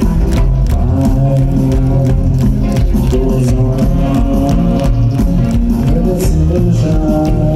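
Rock band playing live through a large sound system, with electric guitars, a heavy bass line and a steady drum beat.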